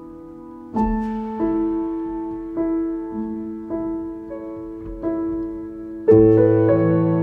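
Slow, gentle solo piano music, single notes struck about once a second, then a louder, fuller chord about six seconds in.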